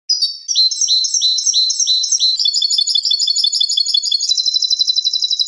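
European goldfinch singing one phrase of song: a run of repeated notes that quickens, then breaks into a fast trill about four seconds in.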